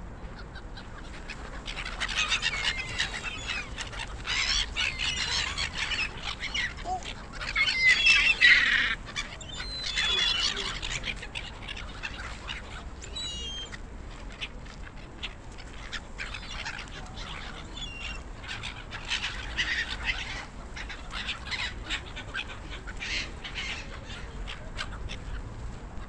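A flock of gulls calling: many overlapping shrill cries, busiest and loudest in the first half, then thinning out to scattered calls with another short flurry about three quarters of the way through.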